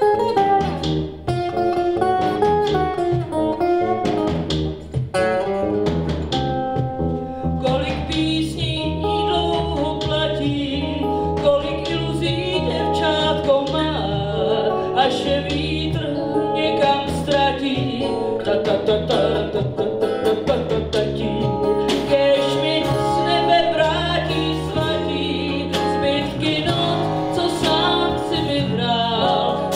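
Live band music: electric bass and drum kit with cymbals, joined by a woman singing into a microphone from about eight seconds in.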